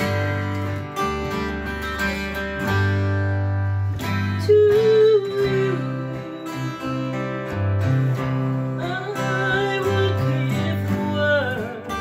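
Three acoustic guitars strumming and picking chords together while a woman sings the melody, her voice coming in a few seconds in and again in the second half.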